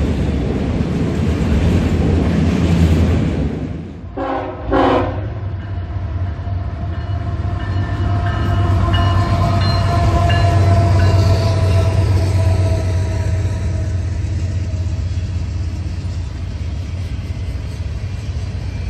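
CSX freight train's autorack cars rolling past with a steady rumble. About four seconds in the sound drops abruptly, two short tonal notes follow, and then comes a steady low drone of a diesel-hauled freight train with faint held tones over it.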